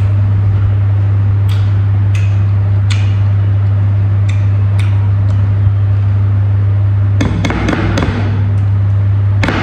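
A loud, steady low hum, with sparse short clicks and taps from eating by hand off a plate and handling a jar. A denser clatter comes about seven seconds in.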